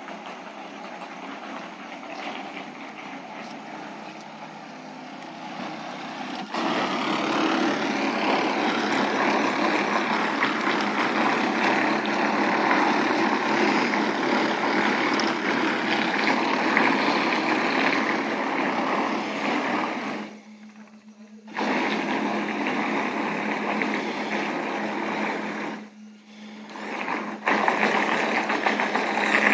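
Radio-controlled model tugboat's propellers churning and cavitating at the surface with a steady hum, throttled up about six seconds in and cut briefly twice before running on. The props cavitate because they are not fully submerged: the hull sits too high for want of ballast.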